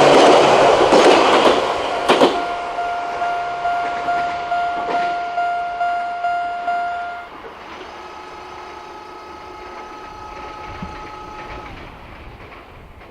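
A train rolling over a railway level crossing, loud at first and dying away about two seconds in. The crossing's electronic single-tone warning bell keeps striking about twice a second, then stops about seven seconds in, leaving fainter steady tones.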